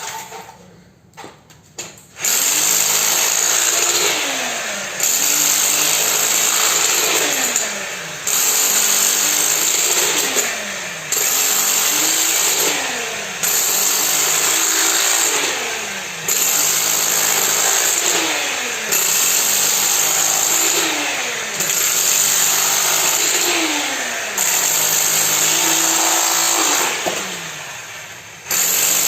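Concrete pouring machine starting about two seconds in after a few knocks, then running loudly in a regular cycle: about every three seconds its noise dips briefly and a falling tone sounds.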